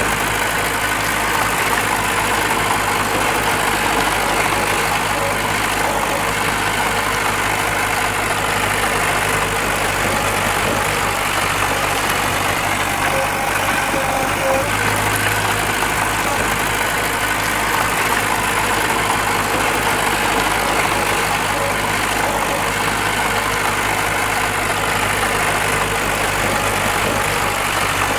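Diesel engine of heavy earthmoving machinery running steadily at a low, even idle.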